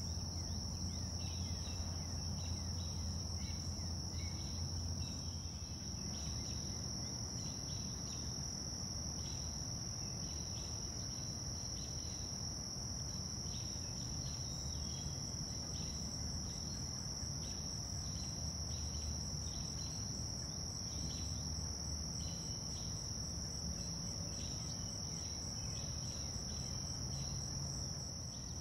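Insects calling: a steady high-pitched trill throughout, with shorter chirps from other insects repeating irregularly a little lower in pitch. Underneath is a low rumble, heavier in the first few seconds.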